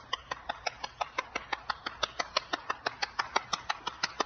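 One person clapping their hands steadily and fast, about six claps a second.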